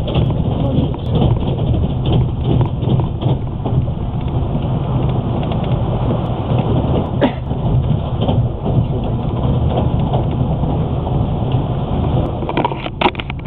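Passenger train running at speed, a steady low rumble of wheels on the rails heard from inside the carriage, with a few sharp clicks near the end.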